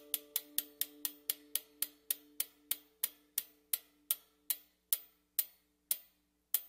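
Bicycle freewheel ratchet ticking as a spun wheel coasts down, the clicks slowing from about five a second to under two a second, over two faint held notes that fade away; part of a music track built entirely from bicycle-part sounds.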